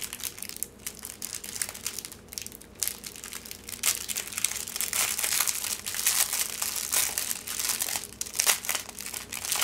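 Small plastic bags of diamond-painting drills crinkling and crackling in the hands as someone tries to open them. The crackles are sparse at first and busier from about halfway through.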